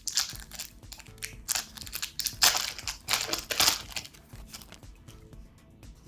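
Foil Pokémon booster pack wrapper crinkling in the hands as it is opened and handled, in several short bursts over the first four seconds, then settling to quieter rustling.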